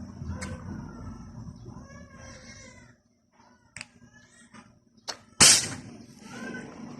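A single shot from a suppressed Nimrod air rifle firing a pellet: one short, sharp crack about five seconds in, with a small click just before it.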